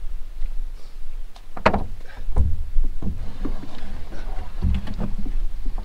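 Canoe hull being dragged through a shallow bog channel, scraping and bumping over mud and grass. It knocks loudest a little under two seconds in, again at about two and a half seconds, and near the end.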